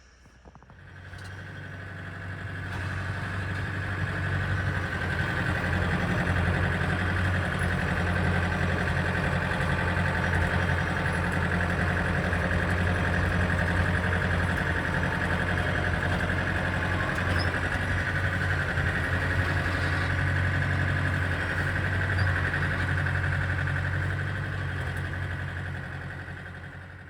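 Tractor engine running steadily, swelling up over the first few seconds and fading out near the end.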